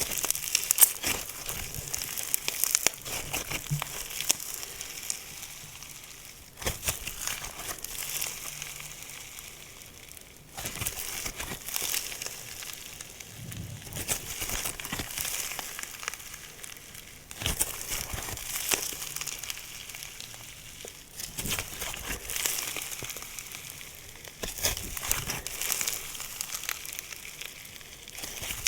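Slime being squeezed and worked by hand: a dense run of sticky crackling and small popping clicks, coming in bouts with short pauses between them.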